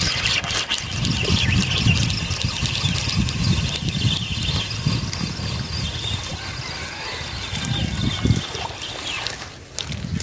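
Fishing reel being cranked to wind in a lure, a steady whirring with fine clicks that stops about nine and a half seconds in, over low rumbling handling and wind noise on the microphone.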